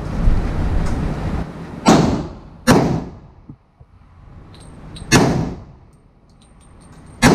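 Glock 31 pistol in a CAA Micro Conversion Kit carbine chassis firing .357 SIG, four slow, deliberate single shots. The first two are under a second apart about two seconds in, the third comes about five seconds in, and the fourth at the very end. Each shot has a short echo of an indoor range booth.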